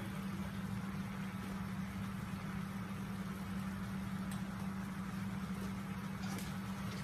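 Steady low hum of a small motor running, with a soft even hiss above it.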